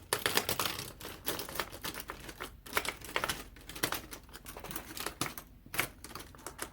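Plastic mechanical pencils clicking and clattering against each other as a handful is handled and set down, a rapid irregular run of small sharp clicks.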